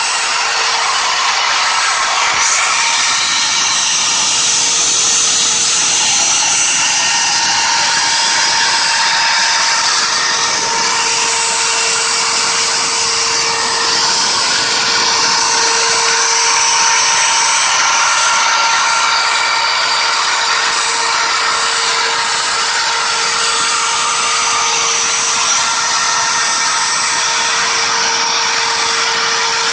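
CNC router engraving a table top: its spindle runs at a constant speed with a steady high whine over a cutting hiss, with no pauses.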